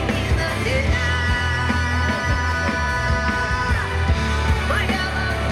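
Live rock band playing through an outdoor PA, with heavy bass and guitar. A long held note sounds from about a second in until nearly four seconds.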